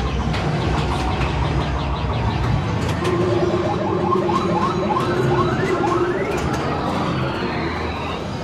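A room of pinball machines going at once: electronic game sounds, with a quick run of rising tones over a held note through the middle and pitch sweeps near the end, over a steady rumble and the sharp clicks of flippers and solenoids.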